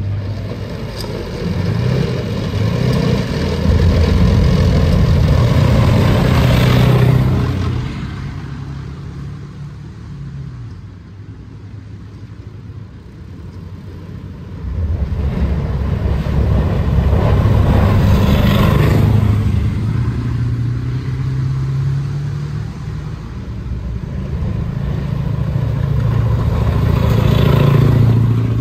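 Heavy military vehicles driving past one after another across a steel panel bridge, engines running under load. Three loud pass-bys, each rising and then dropping away: a few seconds in, midway, and near the end.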